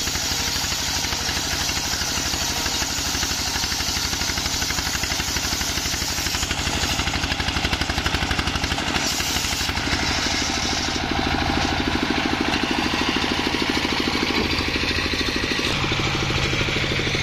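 Small stationary diesel engine running steadily, driving a homemade circular sawmill, with a fast, even putter and a constant hiss above it.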